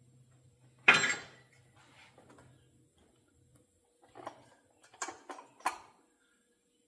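Metal clatter from handling a chainsaw's chain and guide bar: one loud rattling clank about a second in, then a few lighter clicks and rattles later on.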